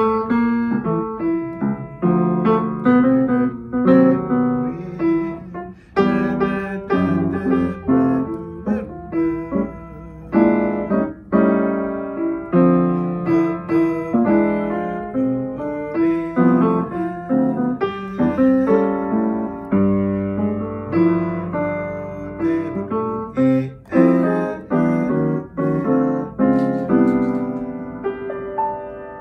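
Upright piano played with both hands: a jazz passage of chords struck one after another, ending on a held chord that is left to ring.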